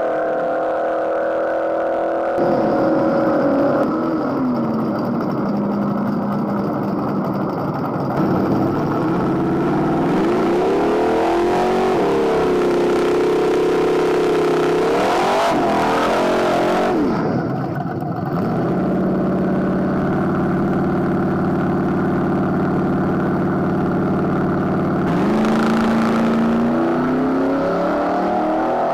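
Small-block V8 Camaro drag car revving: engine pitch climbs and falls several times and is held at steady high revs for a few seconds at a stretch, as in a burnout, then climbs again as the car launches near the end.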